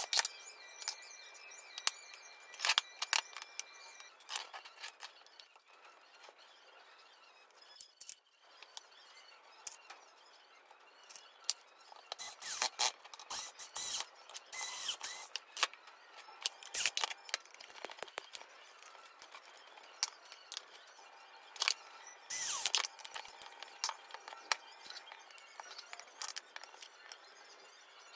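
Small hand-held electric screwdriver driving screws into the parts of a wooden CNC router carriage in a few short bursts, between sharp clicks and knocks of screws and metal parts handled on a wooden table.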